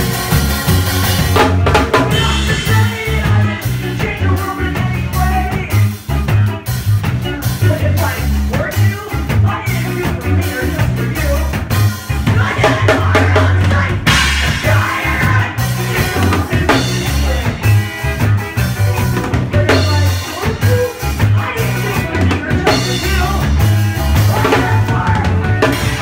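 Loud live band playing: a drum kit with crashing cymbals, electric guitars and a bass guitar.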